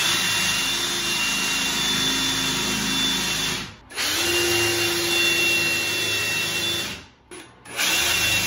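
Cordless drill pre-drilling pilot holes through a wooden door jamb, running at a steady speed. It runs three times, stopping briefly just under four seconds in and again about seven seconds in.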